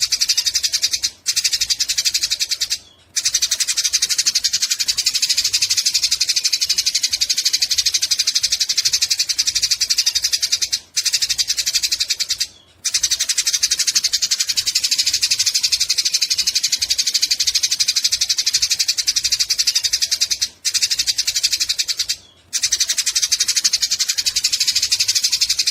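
Eurasian tree sparrows chattering fast and harshly in a squabble, a dense unbroken stream of calls. The stream breaks off briefly a few times, in pairs of short pauses.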